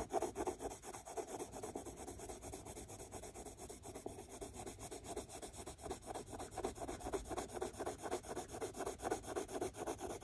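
Cream Prismacolor wax-based coloured pencil rubbing lightly over toothy cartridge paper in quick, even, short strokes, laying a light base layer.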